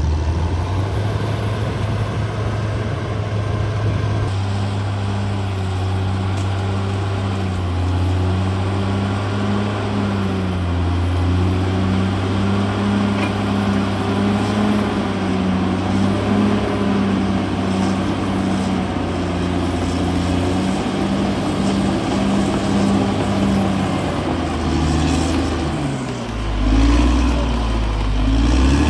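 Caterpillar D6R XL bulldozer's diesel engine running steadily under load, its pitch dipping and then climbing again near the end.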